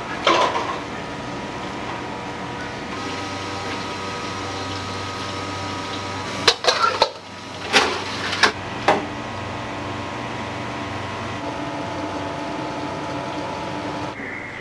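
Restaurant kitchen: the steady hum of running kitchen equipment, with a sharp knock just after the start and a cluster of sharp clatters of cookware and utensils about six to nine seconds in.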